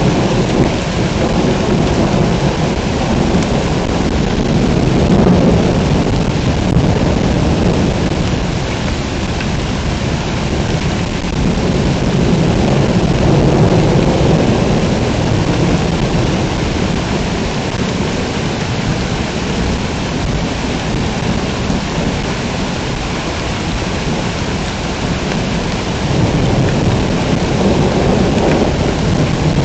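A thunderstorm: heavy rain pouring steadily, with low rolling thunder that swells and fades several times, strongest at the start and again near the end.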